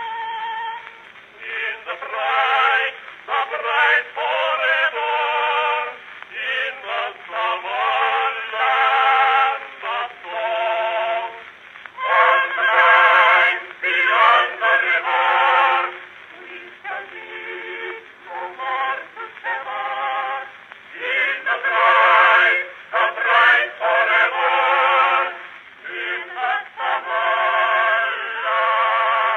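A c. 1908 Edison Standard phonograph playing a cylinder record of a singing voice through its horn. The sound is thin and narrow, with no bass and no top, and the sung phrases carry a wavering vibrato.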